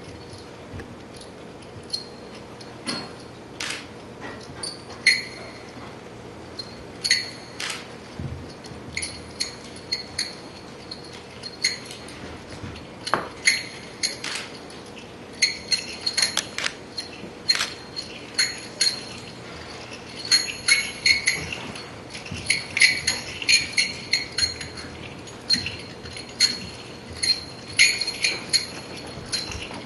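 Irregular clinks and taps of small hard objects, with short bright ringing. They are sparse at first and come thicker and faster through the second half, over a faint steady hum.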